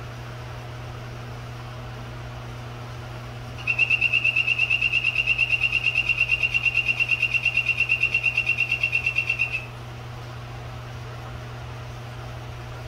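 Bicolor dart frog calling: one high, buzzy trill of rapid pulses, about eight a second, starting a few seconds in and lasting about six seconds at a steady pitch.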